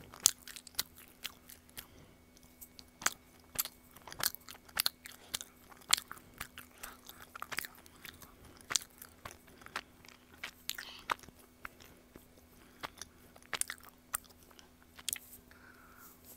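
Close-up chewing of a chewy honey-filled rice cake (baekseolgi): wet, sticky mouth clicks and smacks, several a second and irregular, over a faint steady hum.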